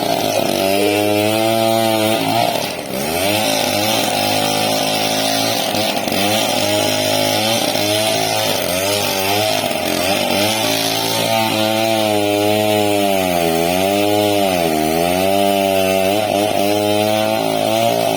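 Chainsaw engine running hard through a large log, its pitch wavering as the load changes. About two-thirds of the way in the pitch sags twice and picks up again as the saw bogs in the cut.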